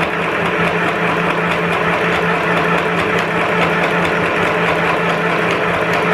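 Monghui mini electric sewing machine running steadily, driven by its foot pedal and stitching through a piece of cloth: a steady motor hum with a fast, even clatter of the needle.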